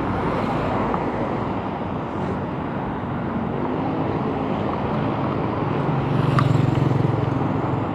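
City street traffic heard from a moving bicycle: a steady rumble of road and engine noise, with one vehicle's engine hum growing louder about six seconds in and easing off near the end.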